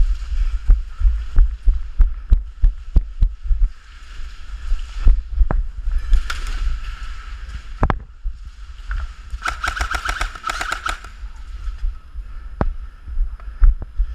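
Airsoft gun firing a rapid full-auto burst of about a second and a half, just past the middle, among scattered single sharp snaps. Low thudding of movement and handling on the microphone runs underneath.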